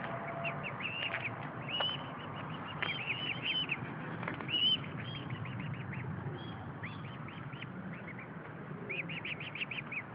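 Mute swan cygnets peeping: short high calls, repeated in quick series, with a fast run of them near the end.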